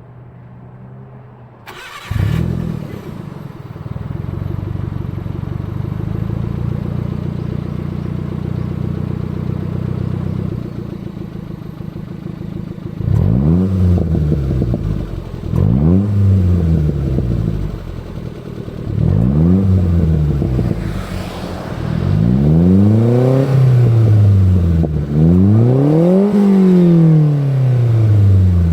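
Nissan March Super Turbo's twin-charged MA09ERT engine breathing through a FUJITSUBO Legalis R aftermarket muffler: it catches about two seconds in and idles steadily, then is revved five times, each rev rising and falling back to idle, the last two higher and longer.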